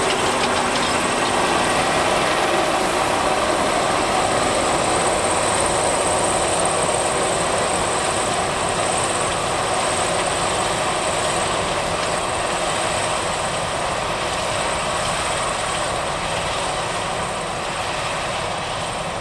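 Gomselmash KZR-10 "Polesie Rotor" combine harvester running while harvesting grain: a steady, dense drone of engine and threshing machinery with a high whine over it, growing gradually fainter toward the end as the combine moves away.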